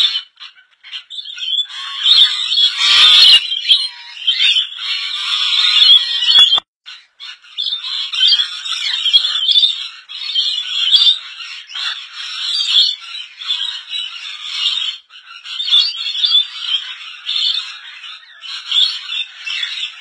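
A flock of rainbow lorikeets chattering and screeching over one another, dense and unbroken apart from short gaps about a second in and near seven seconds in. A brief knock sounds about three seconds in.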